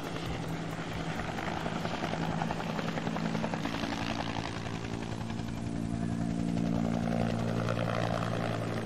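Firefighting helicopter with an underslung water bucket flying close: a steady rapid rotor chop over a steady engine drone, getting a little louder in the second half.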